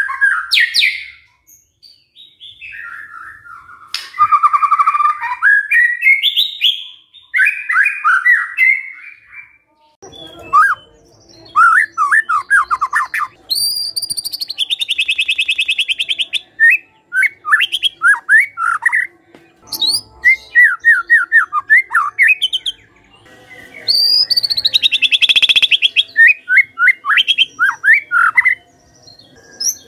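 A caged white-rumped shama singing: varied whistled phrases at first, then, about ten seconds in, fast runs of sharp falling notes broken twice by a long harsh buzz.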